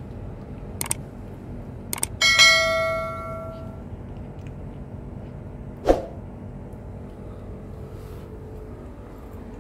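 Subscribe-button animation sound effect: two sharp mouse clicks about one and two seconds in, followed at once by a bright notification-bell chime that rings and fades over about a second and a half. It is the loudest sound here. Another sharp click comes about six seconds in, over a steady low background hum.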